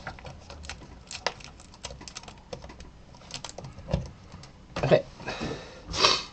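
Rapid, irregular light clicks and taps of hands handling cables and small parts on the open metal chassis of a flat-screen monitor, with two louder rubbing noises near the end.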